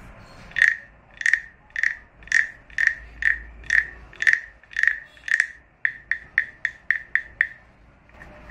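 Small wooden frog guiro scraped along its ridged back with its wooden stick, giving a croaking rasp with each stroke: about ten strokes at roughly two a second, then a quicker run of about seven shorter croaks near the end.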